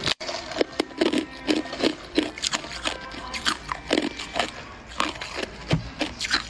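Clear ice cubes being bitten and chewed with the teeth: a rapid, irregular run of sharp cracks and crunches, several a second.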